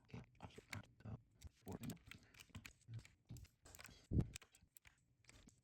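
Plastic keycaps being pressed onto mechanical keyboard switch stems one at a time: a string of irregular small clicks and taps, the loudest about four seconds in.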